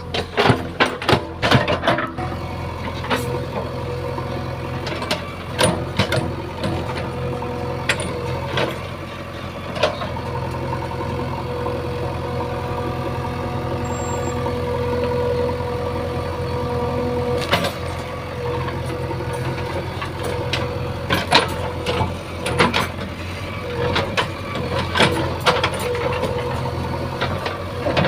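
JCB 3DX backhoe loader's diesel engine running steadily while working, with many sharp clanks and knocks over it, clustered in the first couple of seconds and again in the last several seconds.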